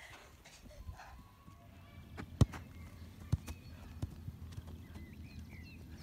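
Scattered sharp knocks of a football being kicked and bouncing on artificial turf, with footfalls, the loudest knock about two and a half seconds in. Faint bird chirps near the end.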